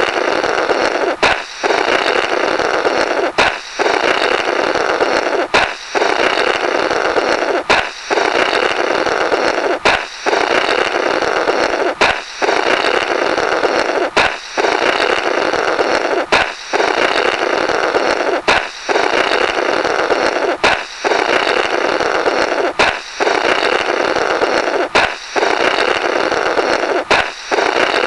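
Comic 'Blorrrt' sound effect played over and over, about every two seconds. Each time a balloon pops with a sharp crack, then someone blows a rough, flapping rasp through the burst rubber for about two seconds.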